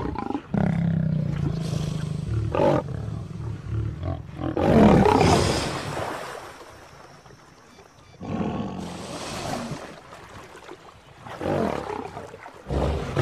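Male lion growling and snarling at a crocodile that gapes at it: a low growl at the start, then loud snarls every few seconds. Water splashes near the end as the crocodile thrashes.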